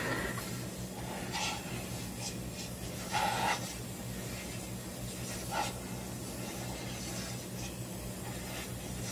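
Oxy-fuel gas torch hissing as it heats a bent steel chassis member to straighten it. A few short louder bursts come through, about a second and a half, three seconds and five and a half seconds in, over a steady low hum.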